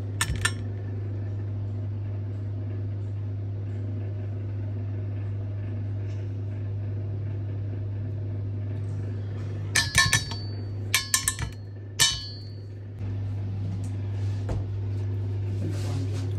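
Steel surgical forceps clinking against a glass dish: a short clink at the very start, then three quick clusters of sharp, ringing clinks about a second apart past the middle. A steady low hum runs underneath.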